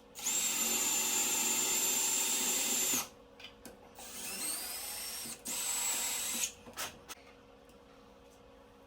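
Power drill running with a Milwaukee Shockwave drill-tap bit to drill and tap holes in metal: a steady high motor whine for about three seconds, then a second run whose pitch rises as it spins up, and a short third run.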